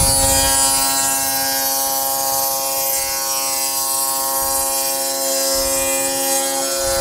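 Table saw with a dado blade running and cutting a 3/4-inch-wide, 3/8-inch-deep dado across a plywood panel: a steady motor hum with a loud high hiss from the blade in the wood.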